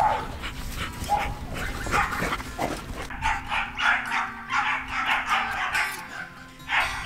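Several dogs, huskies among them, barking and yipping over one another in quick, repeated calls, busiest in the second half.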